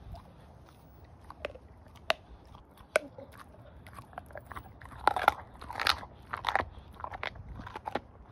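Staffordshire bull terrier chewing a raw pork trotter: a few sharp, separate crunches of teeth on the trotter early on, then a busier run of wet chewing and crunching from about five to seven seconds in.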